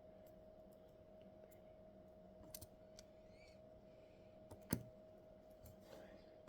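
Near silence over a faint steady hum, with a few light scattered clicks and one sharper click just under five seconds in.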